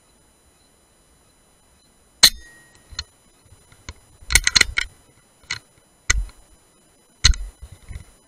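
Sharp metallic clicks and clacks from handling the scoped air rifle, about eight of them over six seconds. There is a single loud click about two seconds in, then a quick run of clacks in the middle and a few more spaced out near the end.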